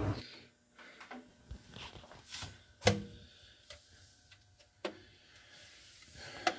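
A few scattered light knocks and clicks as a refrigerator's doors and interior parts are handled, the loudest about three seconds in.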